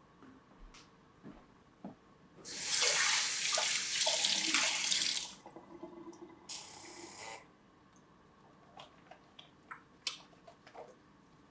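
Water running twice: a rush of about three seconds, then a shorter one of about a second, with small clicks and knocks before and after.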